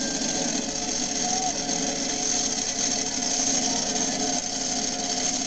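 Monster truck engine running at a low, steady idle with a rapid, even clatter as the truck creeps along the track.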